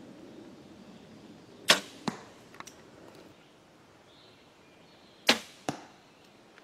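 Two bow shots about three and a half seconds apart. Each is a sharp crack of the bowstring's release, followed less than half a second later by a smaller smack of the arrow striking the foam 3D animal target.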